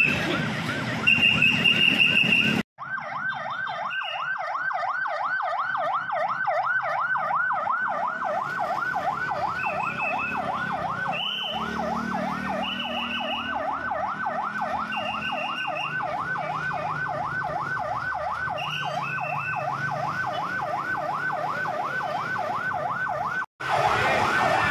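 Ambulance's electronic yelp siren, its pitch sweeping rapidly up and down about three times a second, with short higher tones breaking in every second or so. It starts abruptly a few seconds in and cuts off abruptly near the end.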